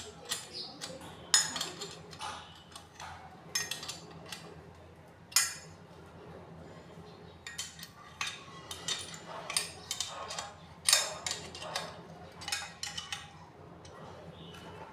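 Irregular metallic clinks, taps and knocks of hand tools and metal pump parts being handled and set down, over a faint low hum.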